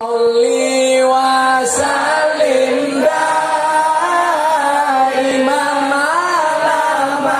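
Sholawat, Islamic devotional chant, sung into a microphone and played loud over a PA system, with long held notes that waver and glide in pitch.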